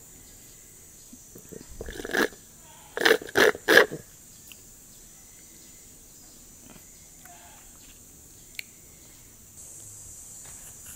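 A person's non-speech vocal sounds: one short burst, then about a second later three loud bursts in quick succession, against quiet room tone.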